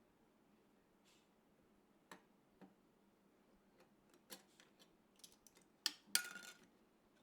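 A series of light, sharp clicks and taps of PC parts and packaging being handled, irregular and gathering pace. The loudest two come near the end, the last followed by a brief scraping rattle.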